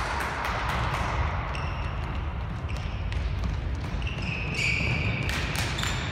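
A handball bouncing on an indoor sports-hall court as players dribble and run, in a reverberant hall, with a few short high squeaks.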